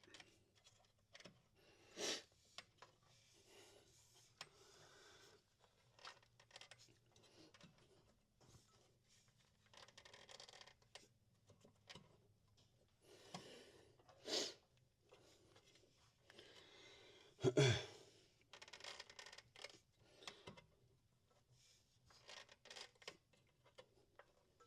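Rubber CVT drive belt being worked by hand onto the clutch sheaves: faint rubbing and scraping, with a few louder short scrapes or knocks now and then.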